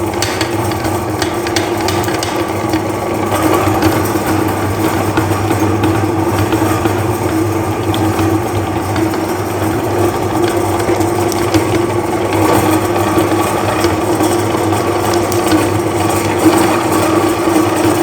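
Electric meat grinder running steadily, its motor humming while the auger crunches and crackles through Kinder chocolate.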